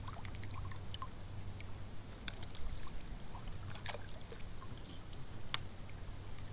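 Water gently lapping and sloshing around a person wading waist-deep, with a few short sharp clicks scattered through, the clearest about two and a half, four and five and a half seconds in.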